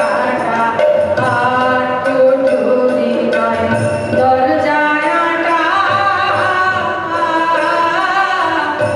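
Singing voice carrying a melodic Indian song over a steady drone, with no break.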